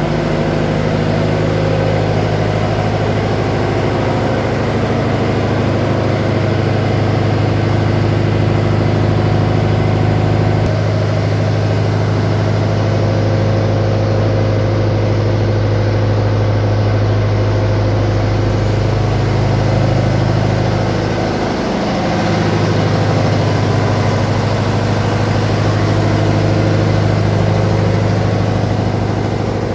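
Ship's engine-room machinery running steadily: a loud, constant low engine hum with overtones, which wavers briefly about two-thirds of the way through and then carries on.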